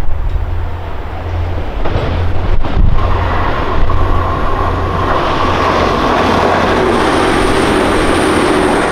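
TransPennine Express Class 185 diesel multiple unit approaching and passing close by: its diesel engine runs under power while wheel and rail noise builds as it draws level. A thin high whine joins near the end, and wind buffets the microphone with a low rumble.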